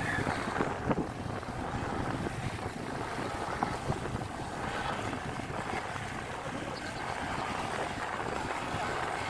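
Wind buffeting the microphone over the steady road and engine noise of a Honda Click 125i scooter being ridden.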